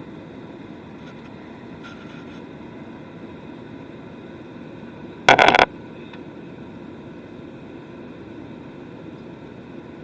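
Steady rushing engine and air noise of an airliner heard from inside the passenger cabin, with faint steady whining tones. A single loud, brief knock or bump cuts in about five seconds in.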